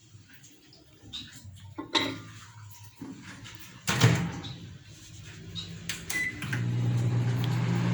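Consul CM020 microwave oven being started: a few knocks and a thump about four seconds in, a short beep about six seconds in, then the oven starts running with a steady low hum. It is its normal running hum with the new magnetron fitted, no longer the loud noise of the faulty magnetron.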